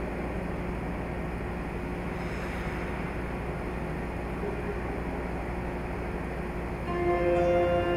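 Steady hum and noise of an indoor ice rink. About seven seconds in, the skater's program music starts with long held tones.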